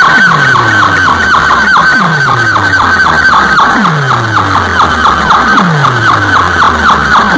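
DJ sound-box system playing electronic effect sounds very loudly: a fast string of falling zaps, about four a second, over a deep falling bass sweep that repeats every second or so.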